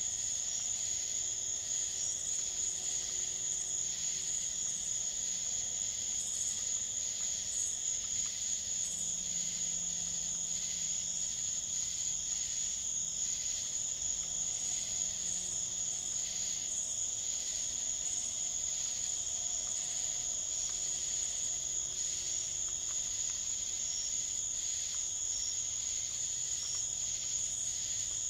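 Chorus of night insects such as crickets: a steady high-pitched trill with a lower, evenly pulsing chirping over it.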